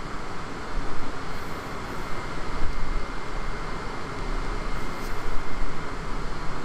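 Steady rushing background noise with a low rumble that swells and fades, and no speech.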